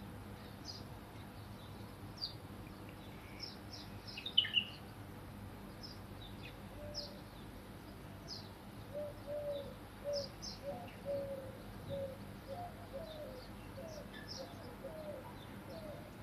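Small birds chirping with short, high, scattered notes, a brief louder flurry about four seconds in. From about halfway, a pigeon cooing in a run of low, repeated notes joins them.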